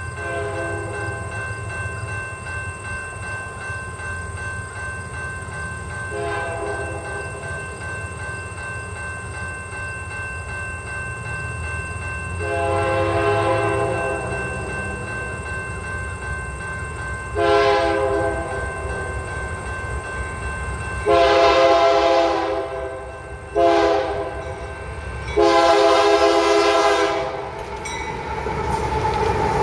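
A GE AC4400CW freight locomotive's multi-chime air horn blowing the grade-crossing signal as it approaches: long blasts, one short blast, then a final long blast, the loudest, broken twice. The diesel engines rumble underneath and grow into a loud rush near the end as the locomotives pass close by.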